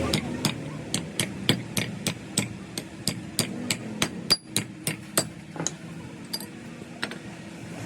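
Hammer striking metal in a quick, even run of about three blows a second. One louder strike about four seconds in leaves a short metallic ring. The blows stop about six seconds in, leaving a couple of scattered knocks.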